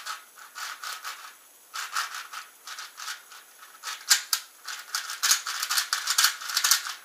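ShengShou 4x4 V III plastic speedcube being turned by hand: its layers click and clatter in quick runs, sparse at first, then faster and louder in the second half. The turning has a bit of a scratchy sound.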